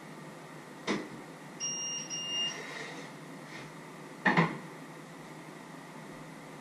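A click, then two short electronic beeps from a kitchen appliance, one right after the other; a loud knock follows a couple of seconds later.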